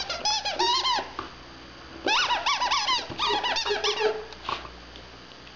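Rubber squeaky toy being squeaked over and over by a dog chewing it, in two runs of rapid squeaks: one in the first second, a longer one from about two seconds in.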